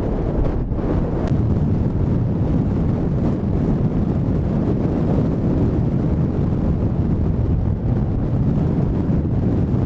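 Strong wind buffeting the microphone as a steady low rumble.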